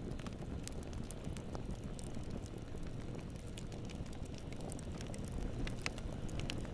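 Wood fire burning in the firebox of a cast-iron Invicta Chamane stove-fireplace: a steady low rumble with scattered sharp crackles.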